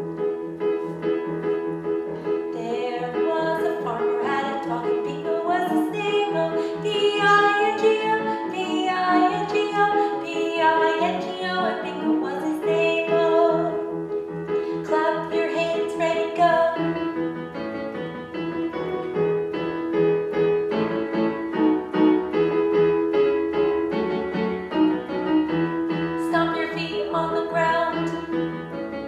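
Yamaha electronic keyboard played with a piano sound, sustaining chords for a vocal warm-up, with a woman singing warm-up patterns over it for long stretches.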